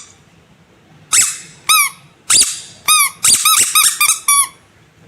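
Rubber squeaky animal toy squeezed over and over: about ten short squeaks, starting about a second in and coming in quick succession near the end. Each squeak rises and falls in pitch.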